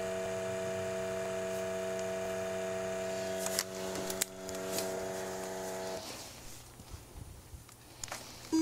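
Steady electric machine hum with a few clicks, cutting off abruptly about six seconds in, leaving faint scattered clicks.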